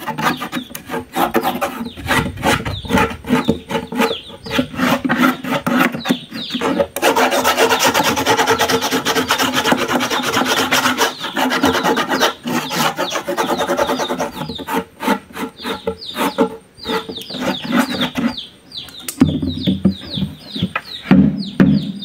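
Inside of a wooden beehive box being scraped clean with a stick, rapid repeated rasping strokes on the wood that run together into a continuous scrape in the middle. Near the end come a few duller thuds as the box is handled.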